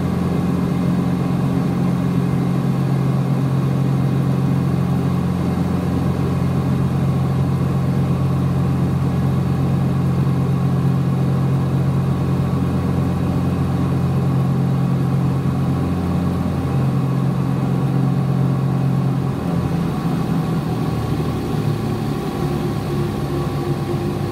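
Cessna 421 Golden Eagle's twin piston engines running steadily, heard in the cockpit. About two thirds of the way through, the steady engine note wavers and drops and the sound gets slightly quieter, as power comes off for the landing.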